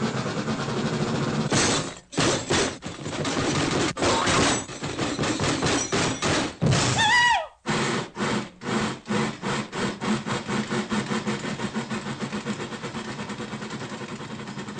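Recorded steam-locomotive sound effects: a hiss, then chuffs that start slow and speed up to a fast, even chugging. A whistle rises and falls about seven seconds in.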